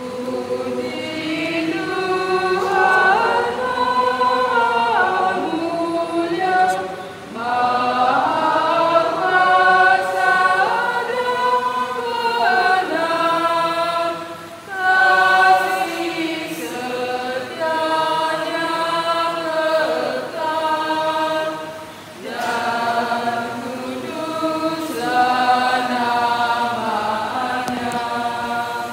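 Mixed church choir singing a hymn in long, held phrases, with short breaks between phrases about 7, 15 and 22 seconds in.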